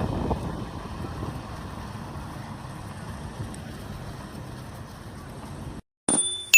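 Steady mechanical running noise that slowly fades and cuts off suddenly near the end, followed by the start of a short tone just before the end.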